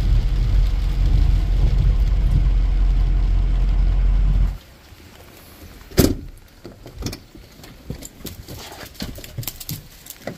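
Steady low rumble of a Ford Powerstroke diesel dually pickup heard from inside the cab in the rain, cutting off abruptly about four and a half seconds in. After that, quieter rain patter outdoors with scattered light clicks and one sharp knock about six seconds in.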